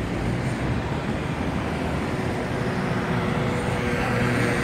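Steady city street traffic: car engines and tyres rumbling, a little louder near the end as a car passes close by.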